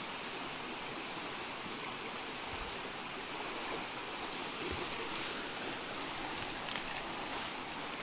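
Shallow stream water running over stones: a steady rushing and babbling.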